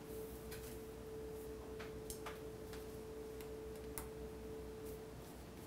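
Faint scattered ticks and clicks of a small Phillips screwdriver working the tiny screws of an iPhone 4's EMF shield. A steady faint tone runs under them and stops about five seconds in.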